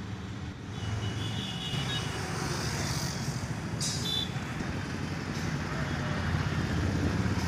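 Road traffic: a steady rumble of passing vehicles, with voices faintly in the background and a few brief high-pitched tones about a second in and again near four seconds.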